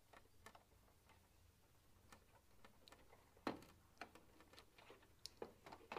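Faint small clicks and rustles of plastic wiring plugs and wires being handled and pushed onto a tumble dryer's control circuit board, with one more distinct click about three and a half seconds in.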